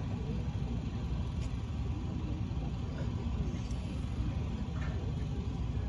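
Steady low rumble of crowd ambience with faint murmuring voices; no music is playing.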